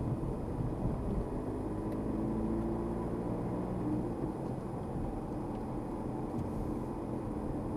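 Car engine and tyre noise heard from inside the cabin as the car drives along, a steady hum whose pitch rises a little in the first few seconds.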